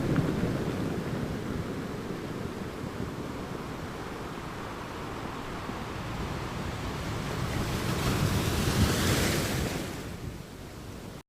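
Ocean waves breaking on a beach, with wind. A wave swells and washes in loudest about eight to nine seconds in, then fades, and the sound cuts off suddenly just before the end.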